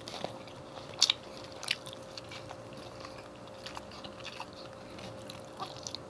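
Close-miked chewing of crispy fried chicken and french fries: scattered sharp crunches of fried breading, the loudest about a second in, with wet chewing between them. A faint steady hum runs underneath.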